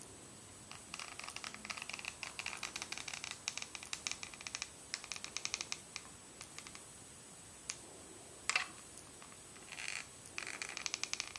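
Rapid runs of small clicks and scratches from close handling, in several bursts with pauses between them.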